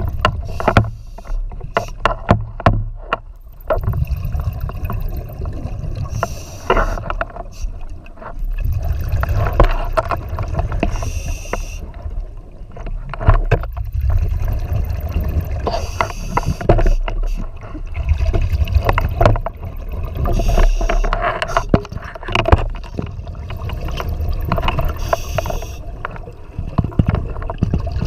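Scuba diver breathing through a regulator underwater: exhaled bubbles rumble out in surges every four to five seconds, with a hiss of inhalation between some of them. A few sharp knocks in the first few seconds.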